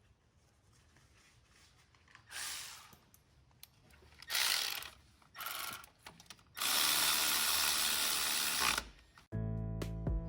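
Power tool with a socket running the new starter's bolts in: three short bursts, then one run of about two seconds. Guitar music comes in near the end.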